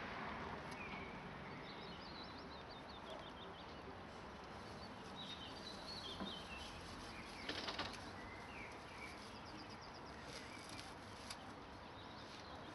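Faint outdoor background hiss with small birds chirping here and there, short high notes scattered throughout, and a brief rapid rattle about seven and a half seconds in.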